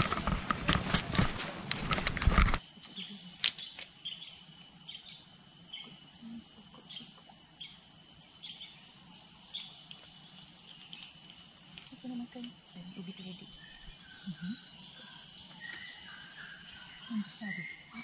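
Knocks and rustling for about two and a half seconds, then a steady high-pitched insect drone of tropical rainforest. Over the drone a short chirp repeats about every two-thirds of a second for several seconds, and a few faint calls come later.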